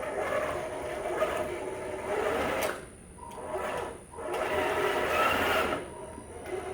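Small electric wheel-drive motors of a remote-controlled mower prototype whirring in stop-and-start runs as it is driven. The sound briefly drops out twice about three and four seconds in, is loudest just after, then eases off near the end.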